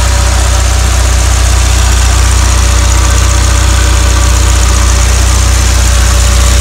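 Honda S2000's F22C 2.2-litre inline-four DOHC engine idling steadily, heard close up from the open engine bay. It runs evenly with no abnormal noises, as the seller judges it.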